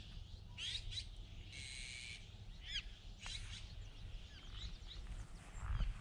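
Wild birds calling on a golf course: repeated short chirps that sweep in pitch, with one buzzy call just before two seconds in, over a steady low rumble.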